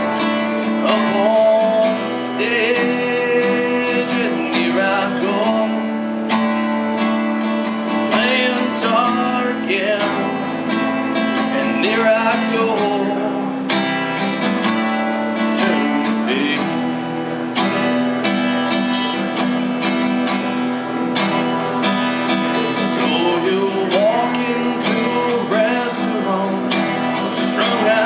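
Acoustic guitar strummed through a steady instrumental passage, played live.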